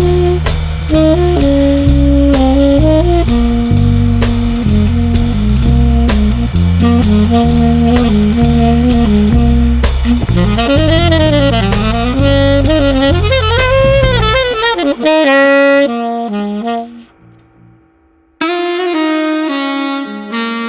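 Background jazz music with a saxophone melody over bass and drums; the beat and bass drop out about three-quarters of the way through, leaving the melody alone, and after a brief near-silent gap the saxophone line comes back.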